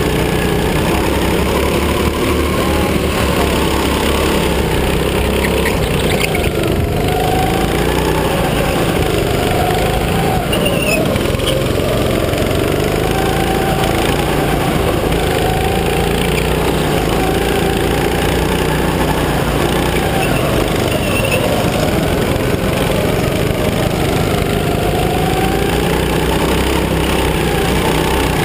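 Go-kart engine running under race load, its pitch rising and falling repeatedly as it accelerates and lifts through the corners.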